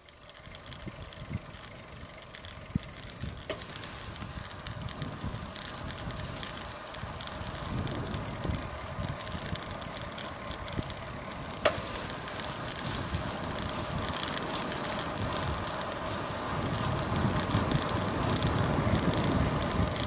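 A bicycle being ridden along a paved trail: tyre noise and rattle, with wind rumbling on the microphone. It grows louder toward the end, and there is one sharp click about halfway through.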